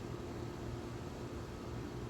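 Steady background hiss with a faint constant hum underneath; no distinct event stands out.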